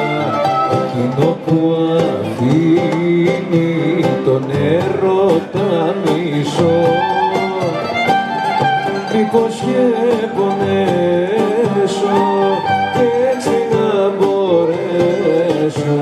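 Live Greek folk band playing a dance song: bouzoukis, violin, guitar and toumbeleki hand drum, with a man singing over them.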